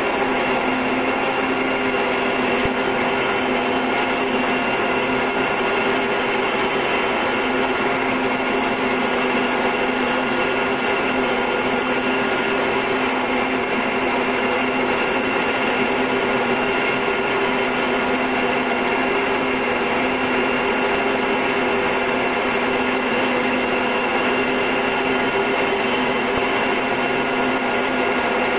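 Steady drone of a Short Tucano's turboprop engine and propeller in flight: a constant hum with several held tones over a broad rushing noise.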